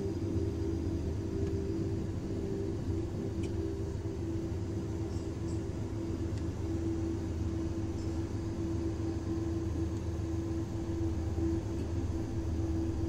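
Steady running rumble of a moving vehicle carrying the camera, a low hum with a steady drone above it and no break.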